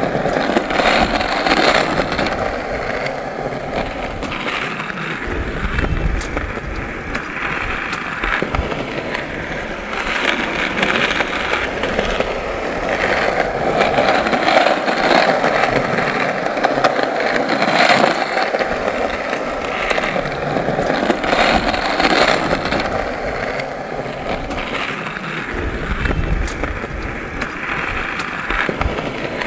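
Skateboard wheels rolling on pavement, a continuous rumble that swells and fades, broken by frequent sharp clacks and knocks of the board.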